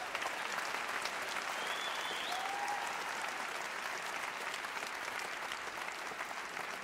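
Large theatre audience applauding steadily, with a brief whistle or whoop from someone about two seconds in.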